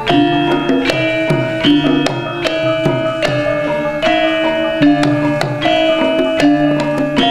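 Javanese gamelan played live by a children's karawitan group: bronze bonang kettle gongs and metallophones struck in a steady stream of notes that ring on and overlap, with kendang hand-drum strokes among them.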